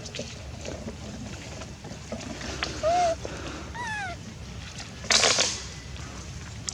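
Baby monkey crying: a short high whimper about three seconds in, then falling pitched cries just before four seconds. About five seconds in comes a loud, harsh, noisy burst lasting about half a second.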